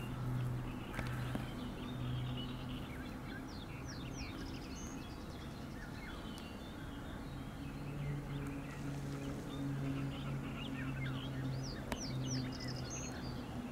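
Common starlings chattering: many short chirps and quick downslurred whistles, scattered irregularly, over a steady low hum.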